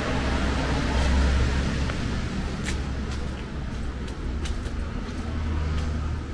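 Steady low rumble of distant road traffic, with a few faint clicks of footsteps on wet stone paving.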